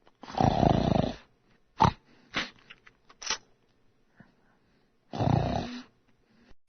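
A person snoring: two long snores about five seconds apart, with three short, sharp snort-like sounds between them.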